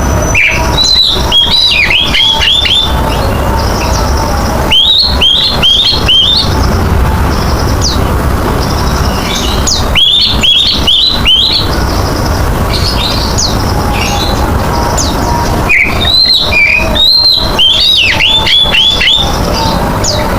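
Oriental magpie-robin (kacer) singing vigorously: four bouts of rapid, repeated slurred notes, with scattered higher notes between them, over a steady low rumble.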